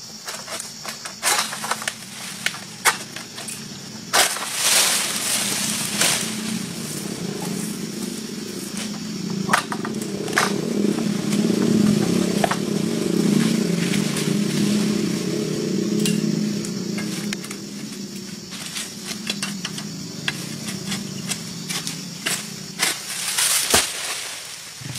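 Scattered sharp cracks and rustles of a long-pole harvesting sickle (egrek) working at an oil palm's fronds and fruit stalks. Under them a motorcycle engine hums, growing louder toward the middle and fading near the end.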